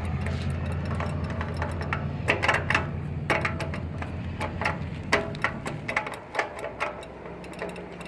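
Econolite crosswalk push button clicking in quick irregular bursts as it is pressed over and over, with the low drone of a vehicle engine that fades about six seconds in.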